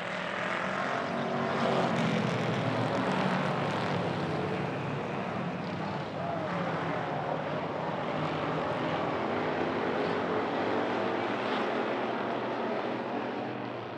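A pack of hobby stock race cars' engines at full throttle, accelerating on the green-flag restart, with engine pitch climbing in the first couple of seconds. The blended sound of many cars stays loud and eases a little near the end.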